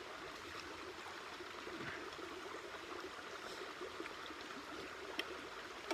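Steady rushing noise of flowing water, like a nearby stream, with a faint clink or two of spoons on steel bowls, one about five seconds in.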